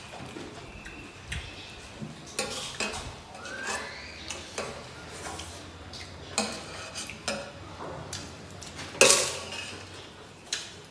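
Eating by hand from metal plates: fingers mixing rice against the plates with scattered clinks and scrapes, and one louder sharp crackle about nine seconds in.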